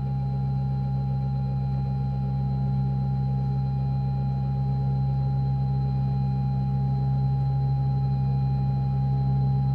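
A steady drone of several held tones, a strong low hum with a clear higher tone above it, swelling slowly in loudness.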